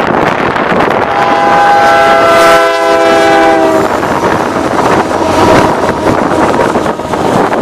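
Canadian Pacific freight locomotive's air horn sounding one long multi-note chord for about three seconds as the lead unit passes close by, its pitch shifting slightly lower near the end. Under it and after it comes the steady rumble of the locomotives and freight cars rolling by on the rails.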